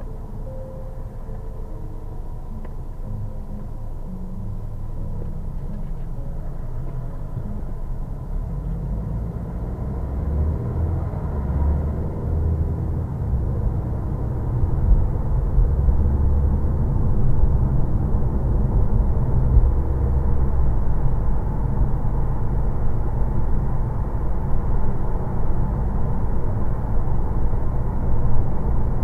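Low, steady rumble of a car's engine and tyres heard from inside the cabin, growing louder over the first half as the car picks up speed, then holding steady at cruising speed.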